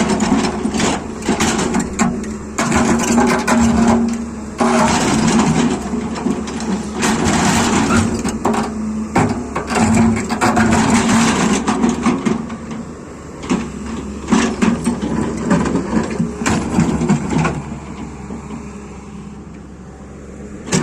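Excavator at work: its engine running with a steady hum under many irregular knocks and scrapes. The sound falls away over the last few seconds.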